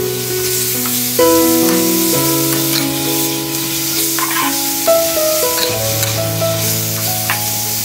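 Beef slices sizzling in a hot steel wok while a metal spatula tosses and scrapes them, with a few sharp scrapes. Background music with held notes plays underneath.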